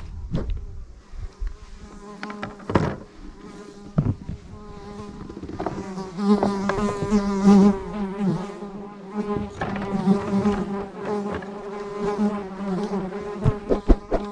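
A flying insect, fly- or bee-like, buzzing close to the microphone, its droning wingbeat wavering in pitch and strongest through the second half, with a few sharp clicks early on.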